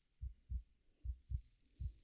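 Heartbeat sound: low double thumps, lub-dub, repeating a little under once a second. About a second in, a soft, hissy rustle of hair being played with starts over it.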